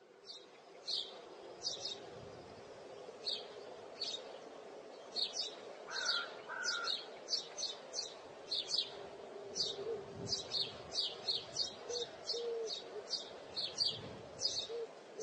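Birds chirping outdoors: short, high chirps, a few at first and coming more often from about five seconds in, over a faint steady background hum.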